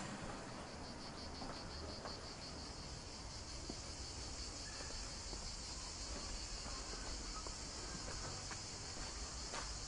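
Insects chirring in a steady high-pitched chorus, pulsing rapidly for the first couple of seconds and then continuous.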